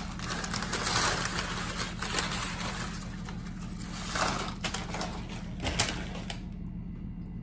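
Paper chip bag crinkling as tortilla chips are shaken out and clatter onto a wooden cutting board. The rustling thins out after about five or six seconds, with a few last clicks. A steady low hum runs underneath.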